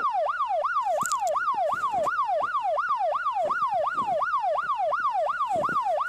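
Siren sound effect in the fast yelp style: one tone sweeping rapidly up and down, about three times a second, at a steady level without a break.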